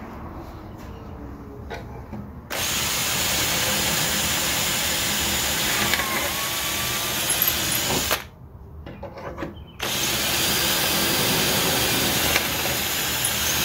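Cordless drill boring into a wooden drawer front, re-drilling hardware holes that had been filled because they were crooked. It runs twice: once for about five and a half seconds starting about two and a half seconds in, then again from about ten seconds in.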